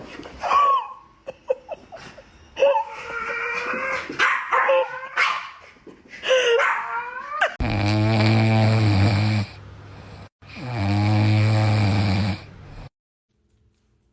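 A dog vocalizing: a run of short barks and yips that bend up and down in pitch. These are followed by two long, steady, low drawn-out sounds of about two seconds each, which stop abruptly about thirteen seconds in.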